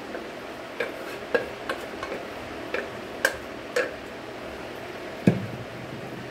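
A spoon scraping and knocking against the inside of a metal pressure cooker as cooked dal is scooped out into a steel bowl: a run of light clinks, then one heavier knock about five seconds in as the cooker is set down.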